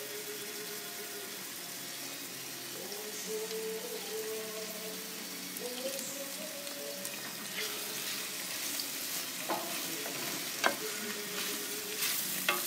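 Strips of zucchini, asparagus, yellow pepper and carrot sizzling steadily as they fry in a stainless steel sauté pan. From about nine and a half seconds in, a wooden spoon stirs them, with a few sharp knocks against the pan.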